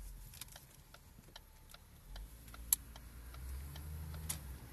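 Wind and road rumble inside a moving car's cabin, with scattered light clicks and ticks at an uneven pace. One sharp click comes a little past the middle and another near the end.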